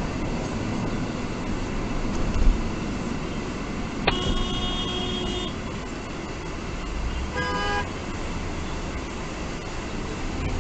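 Steady road and engine noise heard from inside a moving car. A car horn sounds twice: a toot of about a second and a half around four seconds in, then a short toot about three seconds later.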